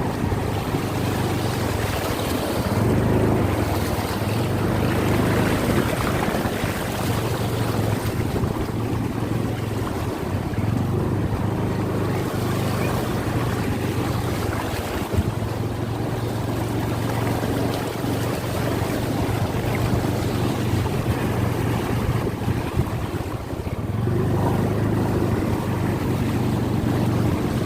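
Motorcycle engine running steadily at an even pace while riding, with wind rushing over the microphone.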